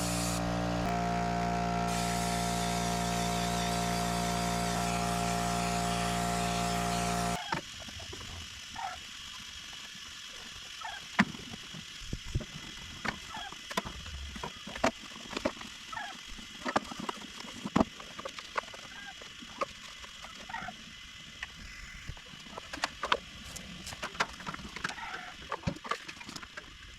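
Air compressor running steadily, its motor hum under a hiss of rushing air, cutting off suddenly about seven seconds in. After that, scattered clicks and knocks with short chirping calls.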